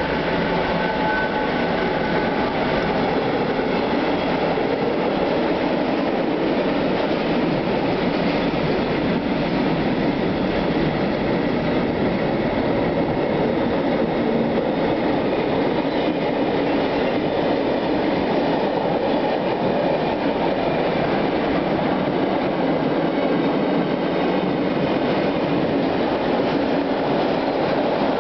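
A long mixed freight train passing close by: the steady rolling noise of its wagons' wheels on the rails. In the first couple of seconds a pair of faint steady high tones rides on top as the DB Class 145 electric locomotive at its head goes by.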